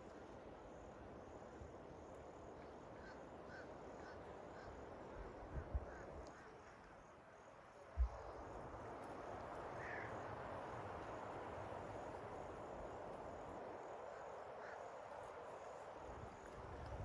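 Wind blowing through pine trees, a faint steady rush that grows stronger about eight seconds in, with a few faint bird calls. A couple of dull thumps, the sharpest about eight seconds in.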